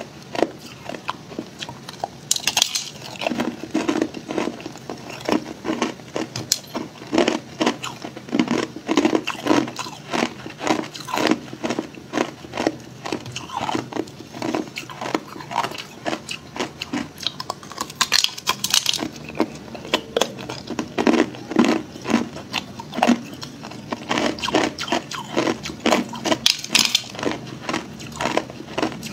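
Crushed clear ice being bitten off a frozen clump and chewed: a quick, continuous run of crisp crunches and crackles, several a second. Three sharper, brighter cracks stand out, a few seconds in, about two-thirds through and near the end.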